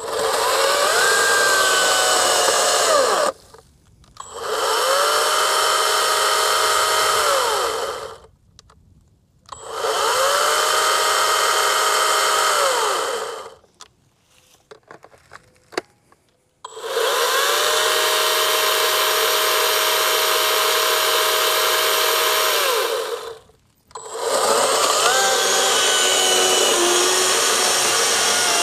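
Harbor Freight Atlas 40V 16-inch brushless battery chainsaw cutting a log in five short runs of a few seconds each. Each run winds up to a steady whine and then cuts off, leaving brief silences between. The saw keeps shutting itself off after a few seconds of running.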